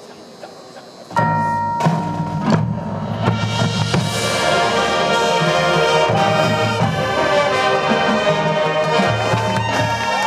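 Marching band's brass and percussion come in loudly about a second in, with held brass chords over drum hits, and keep playing.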